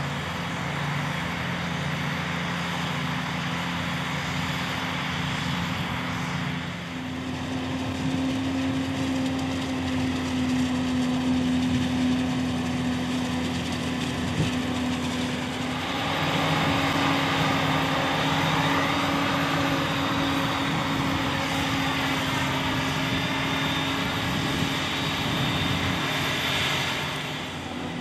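Claas forage harvester running under load while chopping maize: a steady engine drone over the rushing noise of crop passing through the chopper, with a tractor pulling the trailer running alongside. The drone shifts in pitch and level about a quarter of the way in and again a little past halfway.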